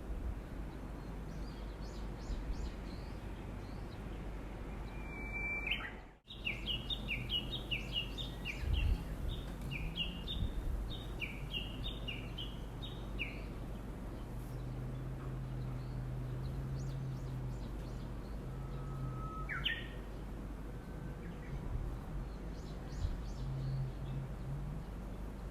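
Wild songbird calling: a rapid run of repeated down-slurred chirps lasting about seven seconds, with a few separate calls before and after. A faint low hum runs underneath, and the audio cuts out briefly about six seconds in.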